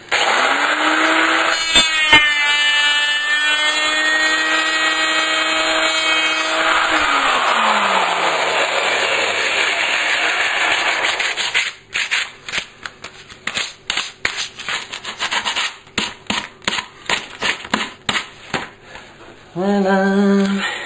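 A power tool motor starts, runs at a steady whine for about six seconds, then is switched off and winds down. After that, a sanding block is rubbed by hand over the cut end of a wooden skirting board in short strokes.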